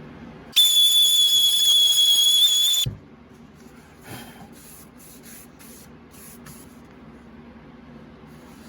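Power sander running with a steady high-pitched whine for about two seconds, then stopping abruptly with a thump, taking a light pass off the back edge of a wooden hinge. About a second later come several short, quick hisses.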